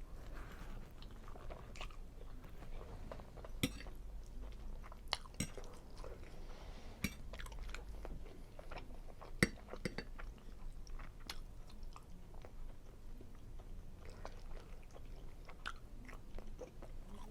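Close-miked chewing of a person eating seafood linguine Alfredo, with wet mouth sounds and scattered irregular clicks and smacks, a few sharper than the rest.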